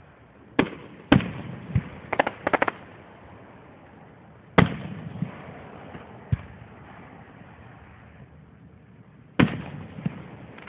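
Aerial firework shells bursting overhead: a series of sharp bangs, each trailing off in an echo, with a quick run of crackling pops about two seconds in, a loud burst in the middle and another near the end.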